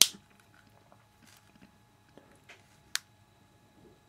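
A sharp plastic click as the Kodak ZM1 pocket camcorder's flip-out USB arm snaps back into its body. Then a few faint clicks and taps as the small camera is handled.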